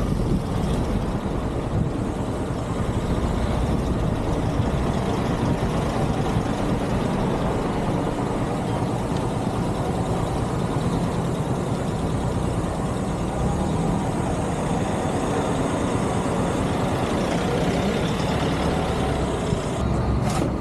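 Motorcycle engine running at low speed, with road and wind noise, as it rides slowly along. A brief knock comes near the end.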